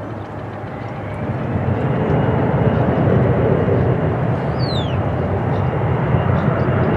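Airbus A319 jet airliner's engines coming in to land, the noise swelling about a second in and then holding loud and steady.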